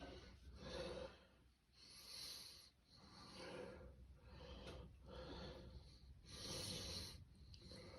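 A person breathing heavily, a faint regular series of breaths in and out, about one every second and a half.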